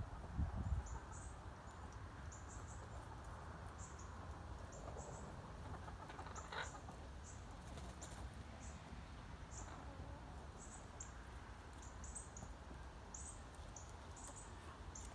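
Faint insect chirping outdoors: short high chirps repeat irregularly, about every half second, over a low rumble. A couple of low thumps come in the first second.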